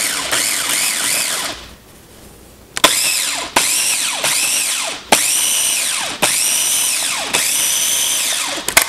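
Cuisinart mini food processor blending roasted eggplant into a dip. It runs once for about a second and a half, stops briefly, then pulses repeatedly, each pulse about a second long. The motor whine rises and falls with each press, and a click marks each start.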